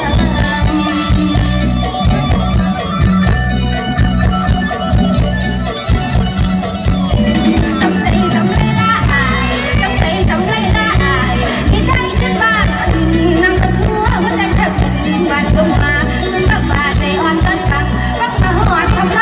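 Live Isan (northeastern Thai) band music played loud through a PA, a woman singing over a steady drum and bass beat.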